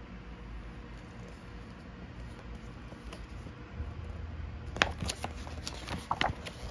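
Paper pages of a rule book being turned: a quiet stretch with a faint low hum, then a quick run of crisp paper rustles and flaps about five seconds in.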